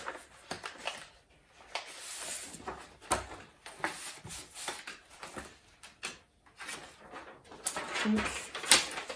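Paper sewing-pattern sheets being pulled from an envelope and unfolded, rustling and crackling in irregular bursts, with the loudest crackle near the end.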